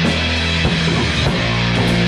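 Loud rock music: guitar over sustained low bass notes, with regular drum hits.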